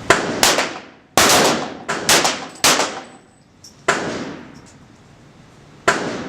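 Pistol shots fired in an uneven string of about eight, each a sharp crack with a long echoing tail.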